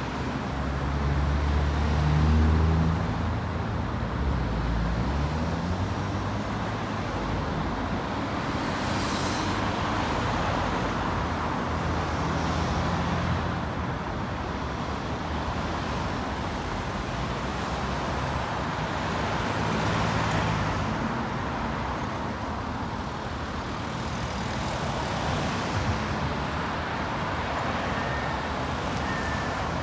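Steady city street traffic, with cars passing and running engines. A vehicle's low engine hum is loudest about two seconds in.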